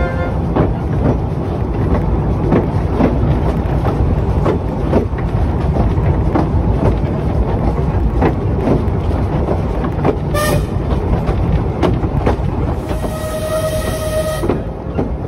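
Narrow-gauge steam train running, a steady rumble with the wheels clicking over rail joints. Its steam whistle gives a short toot about ten seconds in and a longer blast near the end.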